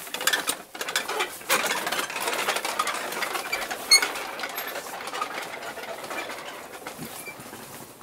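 A row of Tibetan Buddhist prayer wheels being spun by hand one after another, their cylinders rattling and squeaking on their spindles. There is one sharp ring about four seconds in, and the rattling fades toward the end.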